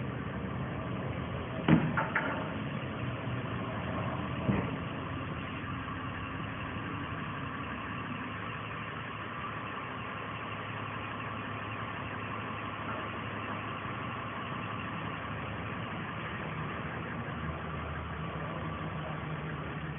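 An engine idling steadily, with a sharp knock about two seconds in and another about four and a half seconds in.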